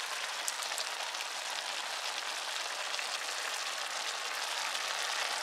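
Diced meat, onion and jalapeño sizzling steadily in a hot sauté pan, with scattered faint crackles.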